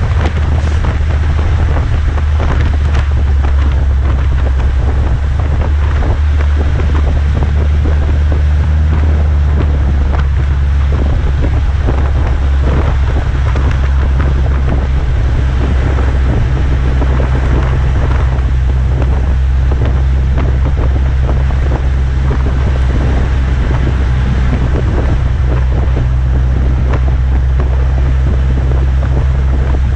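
Chrysler PT Cruiser's Gibson cat-back exhaust with a JBA header droning steadily while driving at speed, one tone of the drone dropping a little in pitch partway through. Wind buffets the microphone heavily, mixed with rain and wet road noise.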